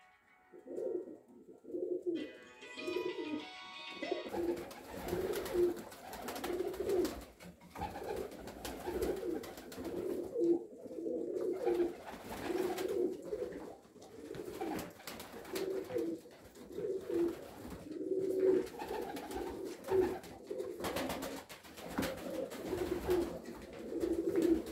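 Domestic tumbler pigeons cooing in a loft, low coos repeating about once a second. From about four seconds in there is a rustling background as well.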